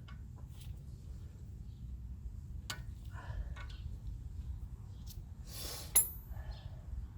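A few short scrapes and metallic clinks of tools working on a car's front brake parts, with a sharp clink about six seconds in, over a steady low rumble.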